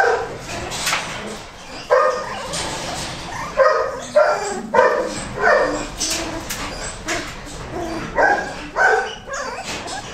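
Newborn Goldendoodle puppy crying: repeated short, high whimpering squeals in little runs, with brief pauses between.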